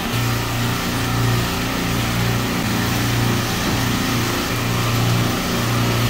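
A rack of Bitzer refrigeration compressors running in a machine room: a steady drone with a strong low hum.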